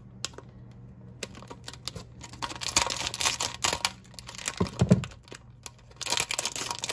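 Metallic foil blind-bag packaging crinkling in the hands and being snipped with scissors, in scattered sharp clicks and rustles. There is a short low sound about five seconds in, then a denser burst of crinkling near the end as the foil bag is pulled open.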